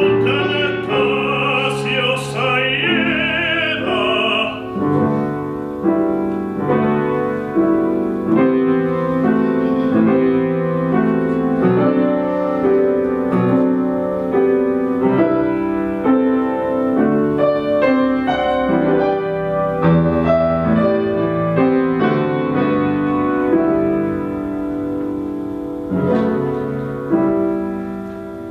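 Opera singing with piano: a singer holds a high note with wide vibrato for about the first four seconds, then the grand piano plays on alone in an interlude between sung phrases, its notes fading near the end.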